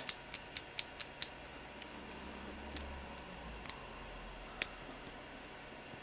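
Small hard-plastic clicks from a 3D-printed fidget-cube rocker switch being pushed onto its peg and rocked: a quick run of about five clicks in the first second and a half, then a few single clicks, the loudest about four and a half seconds in.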